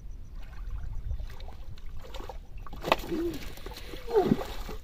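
A hooked fish thrashing and splashing in shallow water at a rocky shoreline as it is pulled in by hand. The splashing grows louder in the second half, with a sharp splash about three seconds in. Two short sliding cries come about three and four seconds in, and wind rumbles on the microphone throughout.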